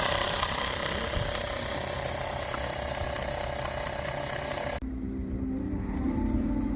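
A loud steady hiss of rushing air that cuts off suddenly about five seconds in, followed by a low steady hum.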